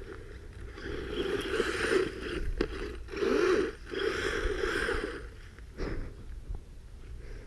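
Brushless electric motor and gear drivetrain of a Redcat Volcano EPX Pro RC truck whirring in three surges of throttle, the pitch rising and falling, as the tires dig into soft dirt; quieter after about five seconds.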